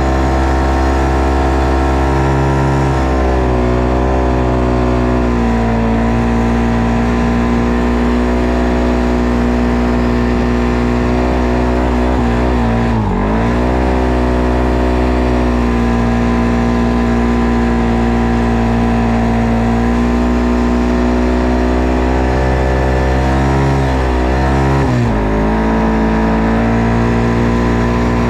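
ATV engine running at a steady throttle, its pitch dipping briefly and picking back up a few times, most deeply about halfway through and again near the end.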